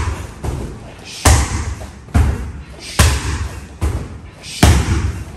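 Bare-shin middle kicks landing on freestanding heavy punching bags: a heavy thud about every second, five loud ones with lighter hits between.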